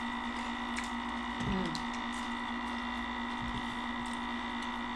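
Electric chocolate fountain, running with melted cheese, giving a steady motor hum, with faint clicks of eating and a short low murmur about a second and a half in.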